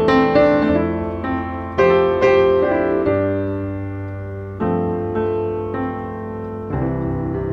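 Slow background piano music: single notes and chords struck one after another, each left to ring out and fade.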